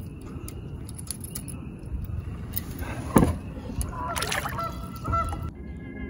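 Water sloshing and a sharp splash about three seconds in as a chain pickerel is lowered by hand into the water beside a paddle board to be released, followed by two short pitched calls. Background music comes in near the end.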